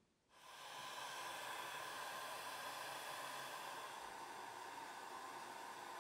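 Steady, even hiss with no distinct events, starting just after the start: background noise.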